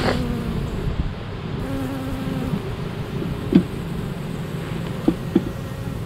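Honeybees buzzing steadily in large numbers around an open hive, a dense low hum. Three short, louder sounds come in the second half.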